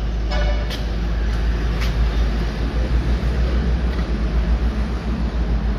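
YTO tractor's diesel engine idling with a steady low rumble while the gear levers are moved. Two light clicks come at about two and four seconds in.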